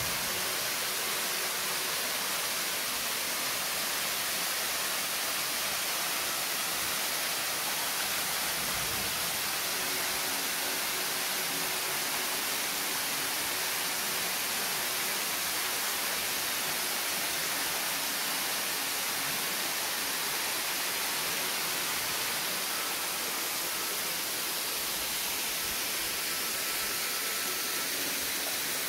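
Waterfall dropping down a rock cliff into a plunge pool, rushing as a steady, even hiss.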